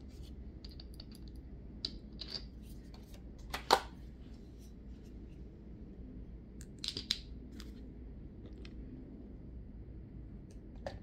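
Small nail polish bottles being handled on a tabletop: scattered light clicks and taps as bottles are picked up and set down, with one louder knock about four seconds in and a quick cluster of taps about seven seconds in.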